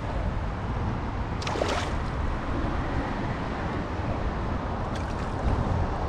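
Wind buffeting the microphone over water lapping against an inflatable kayak, with short bursts of hiss about a second and a half in and again near five seconds.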